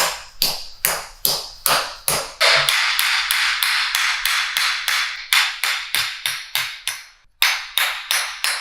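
Chiropractic adjusting hammer tapping rapidly and sharply, about three or four strikes a second. The strikes speed up into a fast, unbroken patter through the middle and stop briefly near the end.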